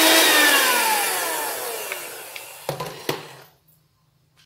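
Philips electric hand mixer's motor winding down after being switched off, its whine falling steadily in pitch and fading over about two seconds. A couple of sharp knocks follow about three seconds in.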